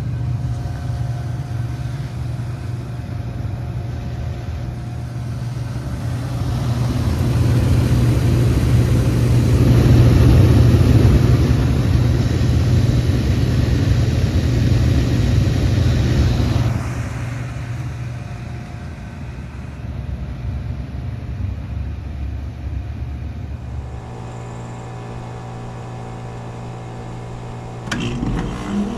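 Iced-over Bard wall-mount heat pump running in heat mode: a steady low hum with a rushing noise that swells for about ten seconds and then drops off. Near the end it gives way to a quieter, steady hum from another heat pump, with a few clicks just before the end.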